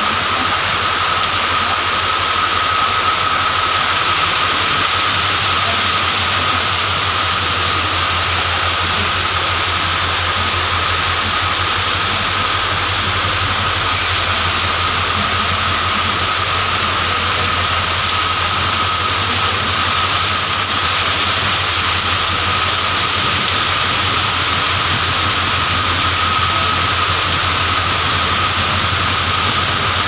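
Indian Railways passenger coaches rolling past on the rails as the train departs the station: a loud, steady rumble and hiss of wheels on track, with a thin steady whine over it.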